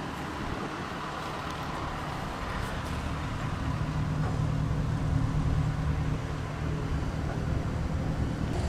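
An engine running steadily at a low idle, a steady hum that grows a little louder about three and a half seconds in.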